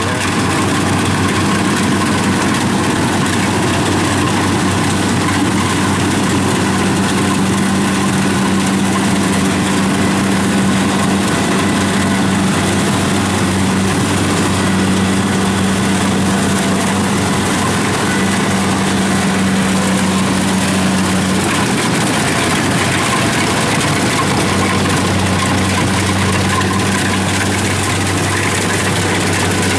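Kubota DC70 rice combine harvester's diesel engine running steadily under load as the machine cuts and threshes rice. It makes a steady low drone with a hum that wavers briefly about two-thirds of the way in.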